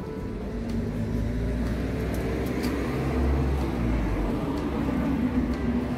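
Deep, steady rumble of a motor vehicle's engine running close by, swelling about three seconds in.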